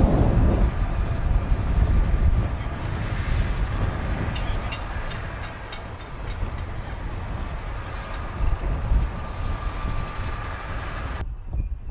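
New Holland T7.270 tractor's six-cylinder diesel running under load as it pulls a seven-furrow reversible plough through the soil, with a steady rumble that fades as it moves away. Light metallic clinks from the plough come in the middle.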